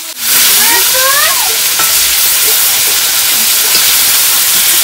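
Chicken leg pieces frying in hot oil with a loud, steady sizzle that starts abruptly just after the start.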